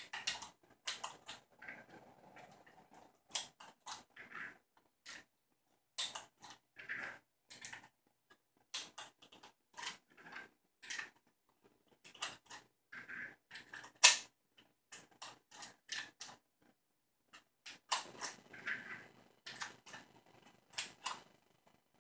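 Cartridges being pressed one by one into a Glock polymer pistol magazine with its plastic factory speed loader: a string of irregular sharp clicks and rattles, one of them markedly louder about two-thirds of the way through.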